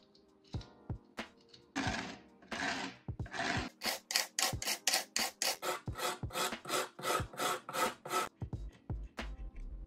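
Brass wire brush scrubbing a small model truck body: a few slow strokes, then quick back-and-forth strokes of about three a second, ending near the end in a few soft low thumps.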